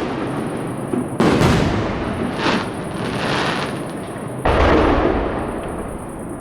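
Fireworks bursting overhead: two heavy bangs, about a second in and again after about four and a half seconds, each trailing off in a long echoing rumble and crackle, with smaller pops in between.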